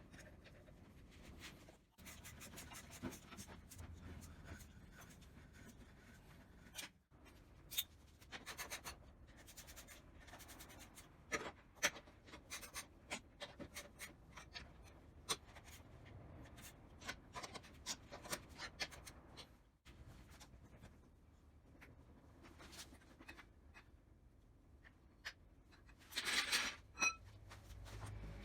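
Scattered light clicks, taps and scraping of hand-tool work, with a short louder rasping scrape near the end.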